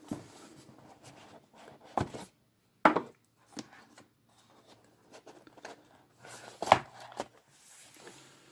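Cardboard box being opened by hand: the lid slid off and a phone lifted out of its tray, with scattered light knocks and rubbing of cardboard, the sharpest about three seconds in and again near seven seconds.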